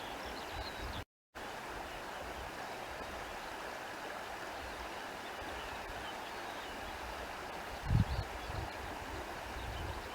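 Countryside ambience: a steady rushing noise with faint high chirps over it. The sound cuts out completely for a moment just after a second in, and a few low thumps come about eight seconds in.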